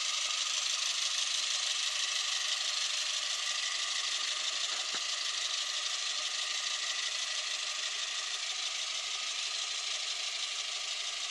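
Steady hiss of background noise, with no distinct events.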